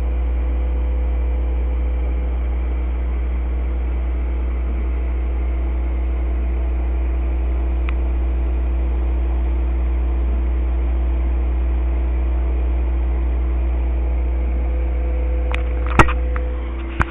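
Aquarium air pump humming steadily as it drives the tank's sponge filters, with a sharp knock and a few small clicks near the end.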